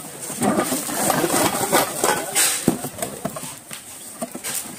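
A cardboard box of steel cookware being handled, with rustling and scraping of the cardboard and irregular knocks and clatter as the box is turned over and set down.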